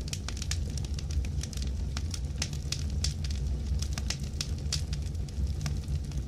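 Fire crackling: a steady low rumble with frequent sharp pops and crackles.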